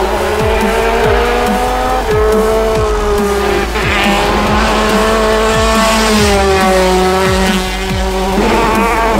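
Rally car engine running hard at high revs, its pitch holding and then dropping briefly at gear changes about 2, 4 and 8 seconds in.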